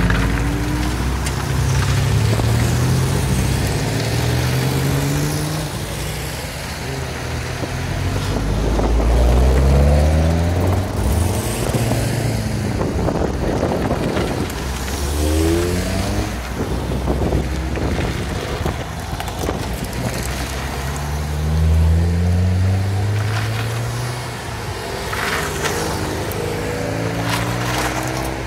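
A convoy of cars, among them older Fords, driving past one after another, their engine notes repeatedly rising as each accelerates away through the gears, the sounds of successive cars overlapping.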